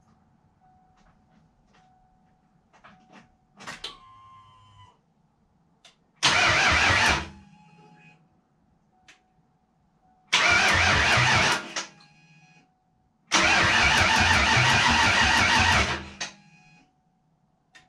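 Freshly rebuilt Ford 302 V8 being cranked over by the starter in three separate attempts, the first two about a second long and the third nearly three seconds, each stopping without settling into an idle.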